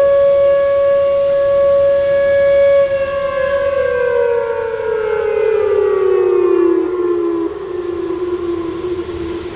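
Whelen 2803 electronic warning sirens sounding a loud steady tone, then sliding down in pitch from about three seconds in and settling on a lower, quieter steady tone.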